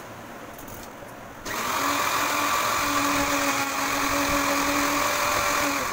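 Electric blender switched on about a second and a half in, its motor running at a steady pitch as it blends milk and oil into an emulsified sauce, stopping near the end.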